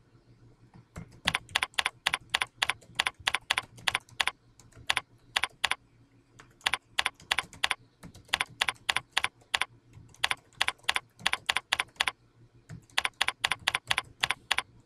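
Typing on a computer keyboard: quick runs of sharp key clicks, about four or five a second, starting about a second in and broken by several short pauses.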